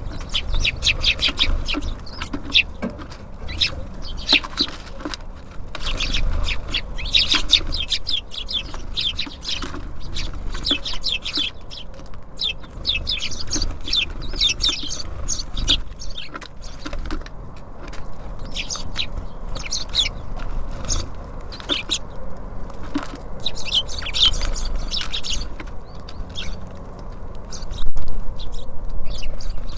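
Many small birds at a feeder chirping and calling in quick, overlapping short notes over a low rumble, with a sharp knock near the end.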